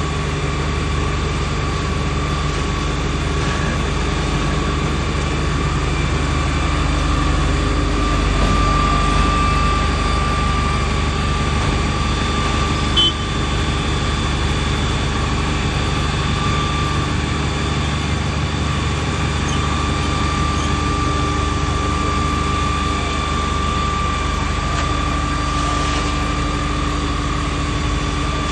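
A heavy engine running steadily at a constant speed, a low rumble with a steady high whine over it. A short click about thirteen seconds in.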